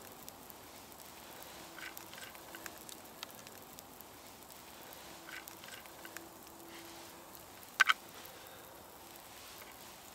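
Campfire embers crackling quietly under a hot cooking rock, with scattered small ticks and one sharp snap about eight seconds in. A few faint short squeaky notes come twice in the first half.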